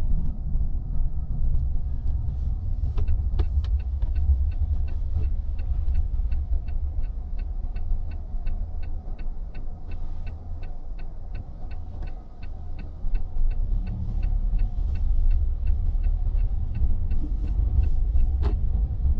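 Steady low road and engine rumble inside a car's cabin, with a turn-signal indicator ticking evenly at about two to three ticks a second, stopping shortly before the end. There is a sharper single click near the end.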